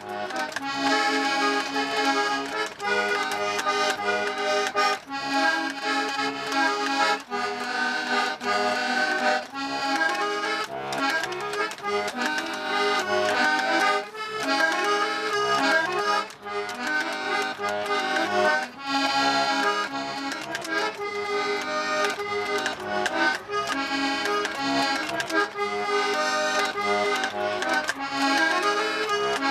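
Button accordion playing a traditional tune: a melody over repeating bass and chord notes, without a break.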